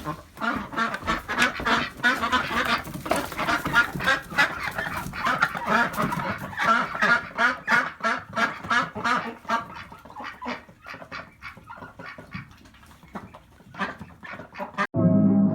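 A flock of domestic ducks calling loudly, with many quick, overlapping honking quacks that thin out and fade about ten seconds in.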